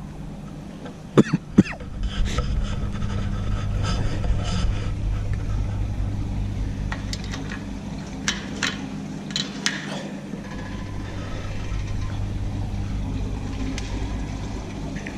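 Steady low hum under scattered clicks and rubbing, with a few sharp knocks about a second in and more clicks around the middle.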